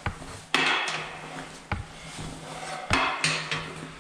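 Footsteps in waders splashing through shallow water, three heavy steps a little over a second apart.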